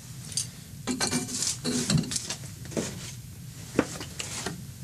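Small Glock pistol parts clinking inside a glass beaker as it is handled and set down into a stainless-steel ultrasonic cleaner. The sound is a series of sharp clinks and knocks of glass and metal.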